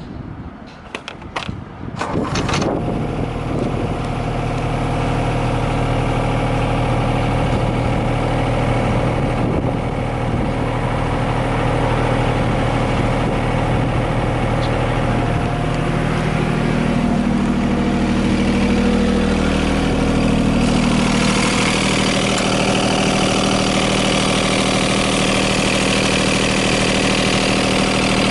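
Komatsu PC15R-8 mini excavator's diesel engine being cranked and catching about two seconds in, then running steadily at idle; its sound grows harsher about twenty seconds in.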